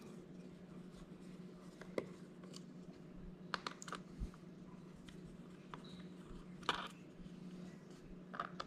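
Faint, scattered clicks and light scrapes of a small screwdriver bit turning T5 screws in a laptop's aluminum bottom case, a few separate ticks over a steady low hum.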